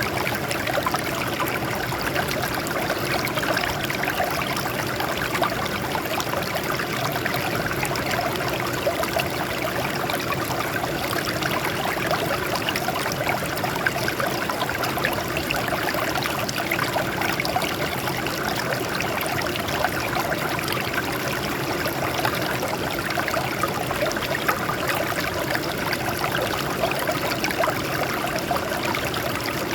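Water flowing and splashing over rocks, a steady babbling rush.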